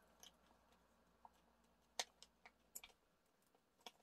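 A few faint plastic clicks of Himi jelly gouache paint cups being pressed into their plastic tray, one just after the start and a small cluster about halfway through, over near silence.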